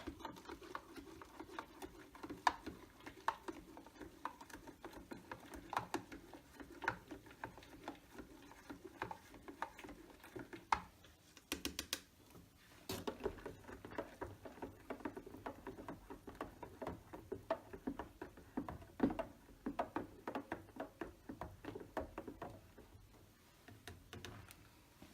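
A spoon stirring hot cocoa mix into coffee in a cup, with many light, irregular clinks and taps against the cup.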